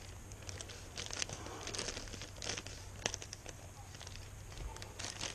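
Plastic parts bag crinkling as it is handled and cut open, with light scattered clicks.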